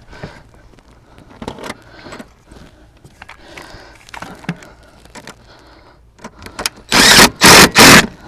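Light clicks, rattles and knocks of a bolt, bracket and tools being handled while refitting a car seat's mounting hardware, then three short, very loud noisy blasts about seven seconds in.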